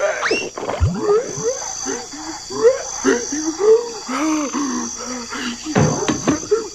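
Animal calls: many short rising-and-falling calls, a few a second, over an intermittent high, steady chirping.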